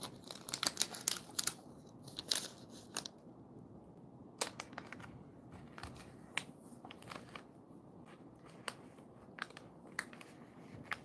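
A dog's mouth and nose working at a torn plastic snack pouch, the wrapper crinkling and crackling. Dense crinkling for the first three seconds, then scattered sharp crackles.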